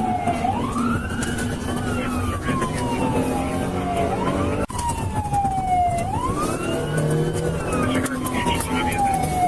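Police car siren wailing, its pitch slowly rising and falling about every four seconds, over the pursuing car's engine and road noise. The sound cuts out for an instant about halfway through.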